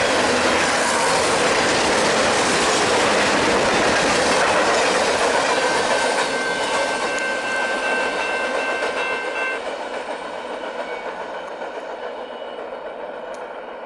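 Covered hopper cars of a freight train rolling past, a steady loud rush of steel wheels on rail, with a high steady wheel squeal from about six to nine and a half seconds in. The sound then fades as the end of the train draws away.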